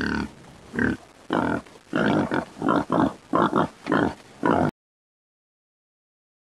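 A farm animal giving a quick series of about eight short grunting calls, which cut off suddenly a little over four seconds in, followed by silence.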